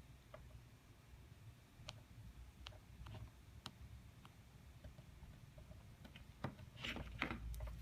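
Faint scattered clicks and taps, a few per second at most. They grow louder and closer together near the end, where a low rumble comes in.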